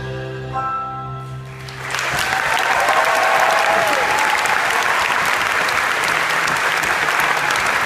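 The band's final held chord rings and fades, and about two seconds in a large audience starts applauding, with one shout heard over the clapping.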